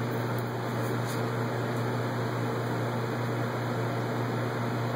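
A steady low mechanical hum with an even hiss over it, like a fan or air-conditioning unit running, with no change in level.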